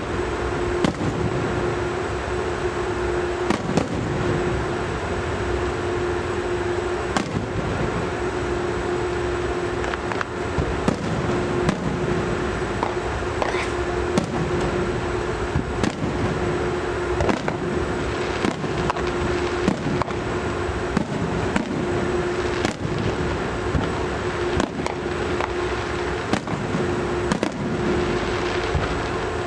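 Fireworks display: a long run of booms and bangs at irregular intervals, some close together, over a steady background rumble, with a low steady hum underneath that breaks off now and then.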